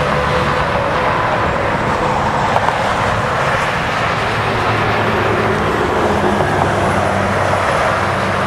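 Steady engine and vehicle noise, with a low drone throughout and a high whine that fades out about a second in.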